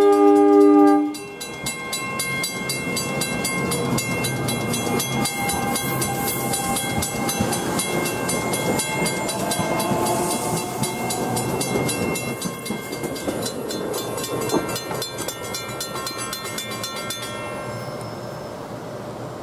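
NJ Transit Arrow III electric multiple-unit train sounding its horn, which cuts off about a second in, then running past over the rails while the grade-crossing bell rings steadily. The bell stops near the end and the train noise fades as it moves away.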